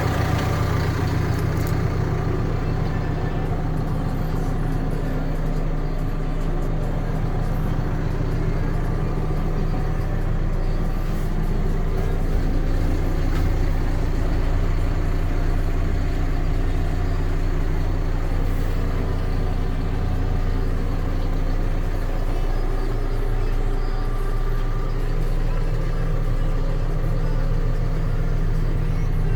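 Hidromek HMK 102B Supra backhoe loader's diesel engine running steadily at an even speed.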